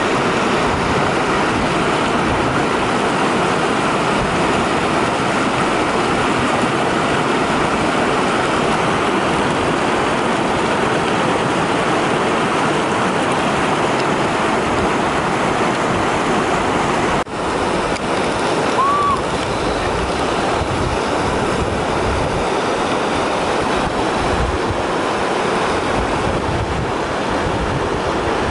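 Steady rushing of river rapids, water pouring over rocky shoals. It breaks off briefly about seventeen seconds in, then a similar steady rush carries on.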